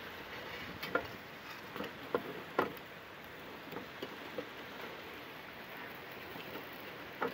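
Dry sticks of wood knocking and clicking against the metal rim of a small pot stove's side opening as they are fed into the fire: a handful of short sharp knocks, mostly in the first three seconds and once more near the end, over a steady faint hiss.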